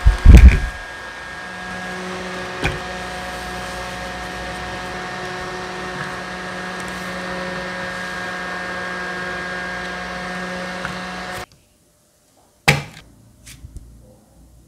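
Small plastic mini desk fans running: a steady motor whir with several steady tones. There is a heavy knock just after the start as the blue fan is handled and a click a few seconds later. About three-quarters of the way through the whir stops abruptly, followed by a sharp knock and a few light taps.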